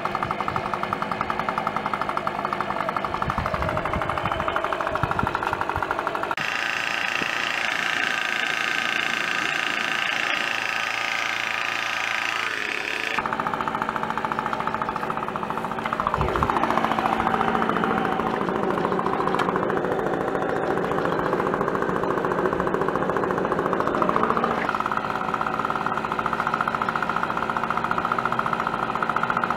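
Leaf blower running steadily, forcing air into the inlet of a cinder-block charcoal forge to get the fire hotter. Its tone and pitch shift abruptly three times.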